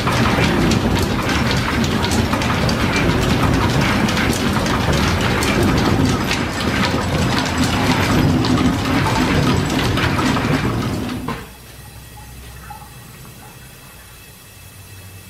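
Overhead line-shaft drive running, its pulleys and old flat leather belts turning with a loud, dense clatter of clicks and knocks. About eleven seconds in the sound drops suddenly to a much quieter low hum.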